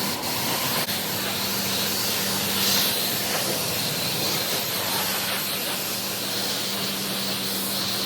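High-pressure car-wash spray hissing steadily against a car, with a steady low hum underneath from about a second in.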